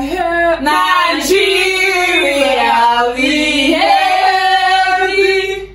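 A woman singing without accompaniment, holding long sustained notes that slide slowly up and down, breaking off just before the end.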